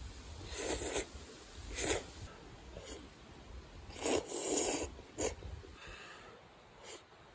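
Udon noodles being slurped in a few short bursts, with one longer slurp about four seconds in.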